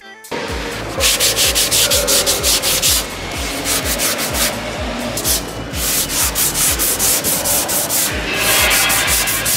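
Hand sanding of cured UV body filler on a steel van door with P150 abrasive on a hand pad: quick back-and-forth rasping strokes with a few brief pauses. This is the first, coarse cut of the filler right after curing.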